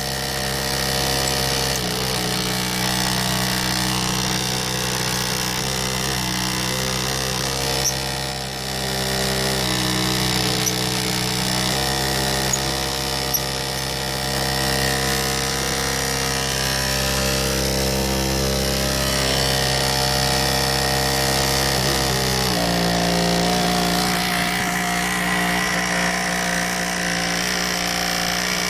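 Steady electric hum from a rewired washing-machine pump and small fan running, a stack of even tones under a faint whine; the tone shifts twice, about 12 and 22 seconds in.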